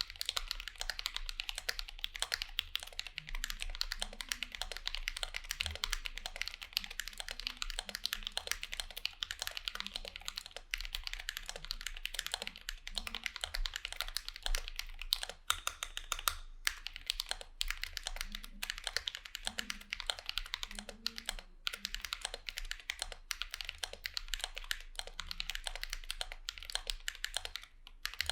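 Continuous typing on a Vulcan x KBDfans Maja mechanical keyboard fitted with Drop Holy Panda tactile switches lubed with Krytox 205g0, a dense stream of keystrokes. There is a short pause a little past halfway and another near the end.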